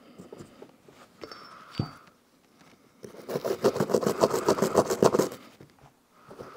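A stiff brush scrubbing quickly back and forth over metal AR-15 bolt carrier group parts for about two seconds, at around ten strokes a second. Before it come a few light clicks and a single knock.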